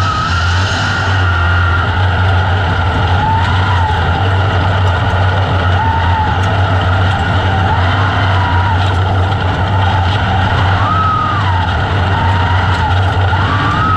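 Open-wheel dirt-track race car engine heard from the cockpit, running loud and hard in a pack of race cars. Its pitch rises and falls several times.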